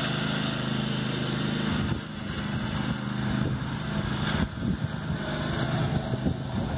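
Riding lawn mower engine running steadily while mowing. About two seconds in its steady hum weakens and uneven low buffeting on the microphone takes over.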